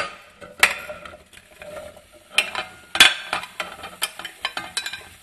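Chunks of cut apple being pushed off a plate with a metal utensil and dropping into a stainless steel pot: a run of irregular knocks and clatters with scraping in between.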